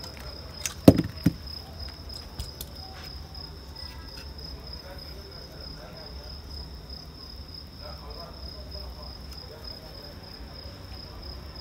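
A cricket trilling steadily at one high pitch, with two sharp knocks about a second in and a few faint clicks afterwards.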